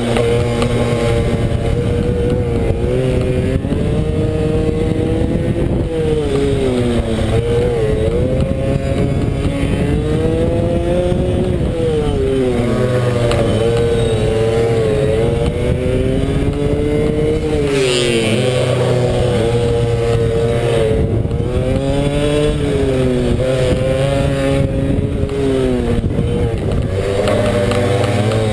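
Pit bike's single-cylinder four-stroke engine heard on board at racing speed, revving up and dropping back again and again, every two to four seconds, as the throttle is opened out of each corner and closed into the next.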